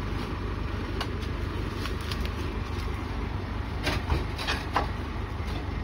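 John Deere tractor's diesel engine idling steadily, with a few sharp knocks and rustles about four to five seconds in as oil palm fruit bunches are lifted onto its trailer with a pole.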